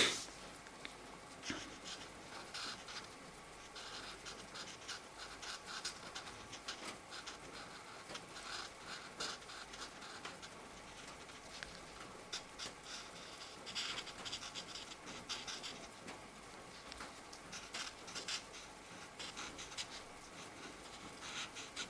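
Marker tips scratching across paper in short, irregular strokes as a colouring-book picture is coloured in with Mancola markers, after a sharp click at the very start.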